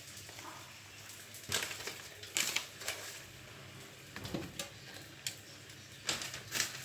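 Kitchen utensils clattering and scraping against a dish in a few short, irregular bursts, over a faint low hum.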